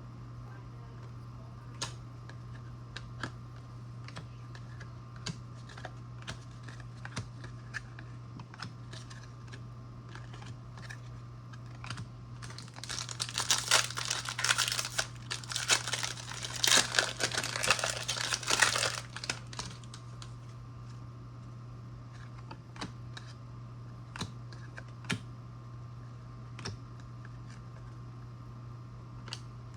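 Trading cards being handled and shuffled, with scattered light clicks and taps. For about six seconds in the middle there is a louder crinkling of plastic packaging. A steady low electrical hum lies underneath.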